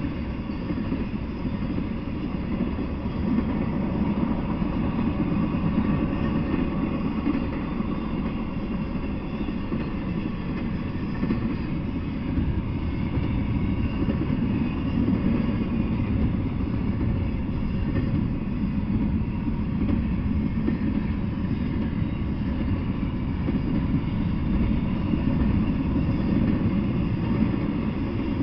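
Intermodal freight train rolling steadily past: a continuous rumble of steel wheels on the rails as double-stack container well cars go by.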